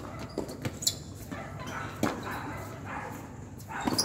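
Tennis ball struck by rackets and bouncing on an outdoor hard court during a rally: sharp pops, one about two seconds in and another near the end.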